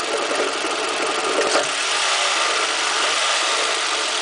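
Toyota 2AZ-FE 2.4-litre inline-four engine running at idle, a steady even sound. The owner is chasing a knock coming from around the starter.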